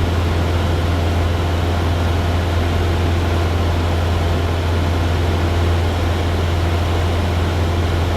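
Cessna 172's piston engine and propeller droning steadily in level cruise, with a strong low hum and a constant rushing hiss.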